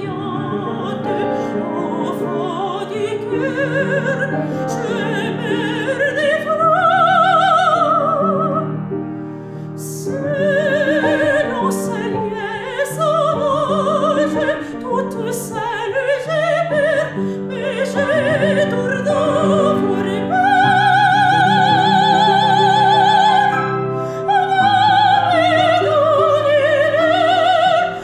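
Female classical singer singing in operatic style with wide vibrato, accompanied by a grand piano. She holds a long high note about three-quarters of the way through.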